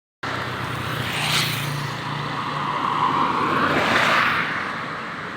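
Tour bus driving past: engine hum and road noise swell up to a peak about four seconds in, then fade away.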